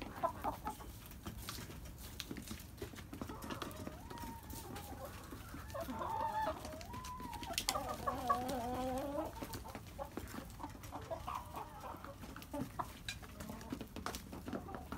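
Domestic hens calling: a few short pitched calls about six seconds in, then a longer, wavering call lasting over a second, over faint scratching.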